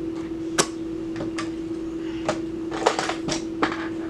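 Irregular sharp clicks and knocks of small objects being handled and set down, about eight in all, with a quick cluster about three seconds in, over a steady low hum.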